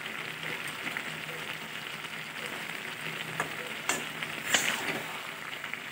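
Vegetable curry frying with a steady sizzle in a metal kadai, stirred with a spatula that clicks against the pan a few times.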